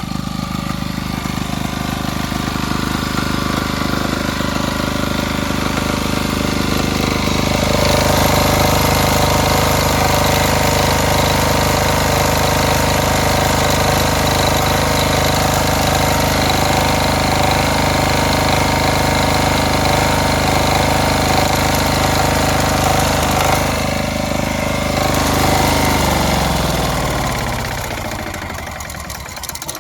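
Small diesel generator engine running. It picks up speed and gets louder about eight seconds in, then winds down with falling pitch near the end. The uneven speed comes from the broken stand of its fuel-supply unit: the unit shakes, so diesel is not delivered evenly and the engine hunts up and down.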